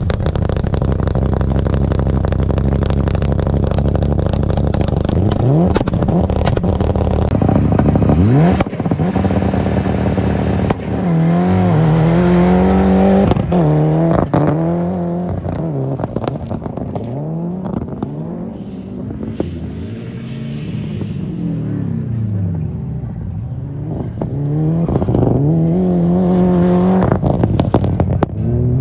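Mitsubishi Lancer Evolution IX rally car's turbocharged four-cylinder engine running hard. After a steadier stretch it revs up and drops back again and again, about every second or two, as it accelerates and lifts off.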